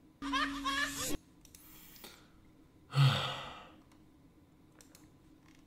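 A rap track plays briefly and cuts off abruptly about a second in. Around three seconds in comes a loud, breathy sigh, falling in pitch and fading over about a second.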